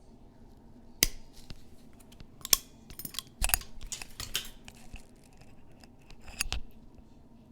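Sharp metal clicks and short scrapes of vice grips (locking pliers) working on a diecast toy's wheel axle as its end is crimped, coming irregularly from about a second in until near the end.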